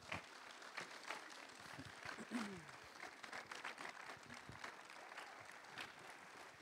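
Faint, scattered applause from an audience, as irregular light claps.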